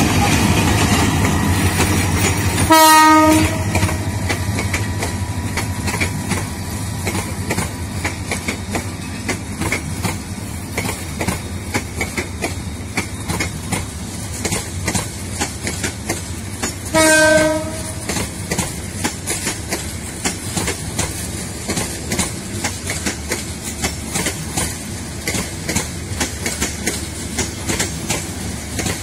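A Bangladesh Railway intercity express passenger train rolling past at speed, a steady rumble with rhythmic clickety-clack from the wheels over rail joints. A short train horn blast sounds twice, about three seconds in and again about seventeen seconds in.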